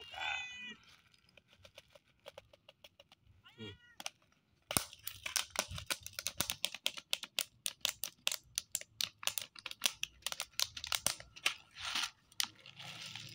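A calico cat meows twice, then crunches dry kibble in quick, irregular crunches for most of the rest of the time.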